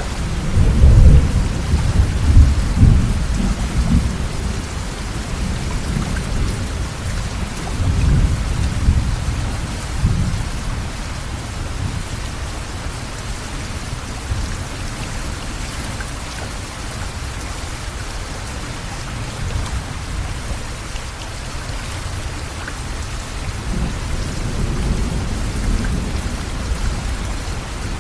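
Steady rush of the Bharathapuzha river in flood surging against and over a bridge deck, with gusts of wind buffeting the microphone, strongest in the first few seconds, around eight to ten seconds in, and near the end.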